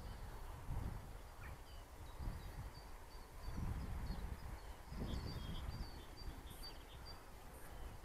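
Wind buffeting the microphone in uneven gusts, with birds chirping in the background.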